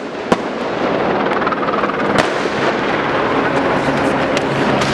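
Sharp bangs of police grenades going off amid tear gas: a loud one just after the start and a second about two seconds in, over continuous crowd and street noise.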